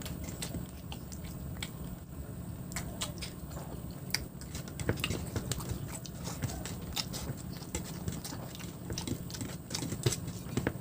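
A person chewing and smacking their lips while eating fish curry and rice: a string of short, irregular wet mouth clicks over a steady low hum.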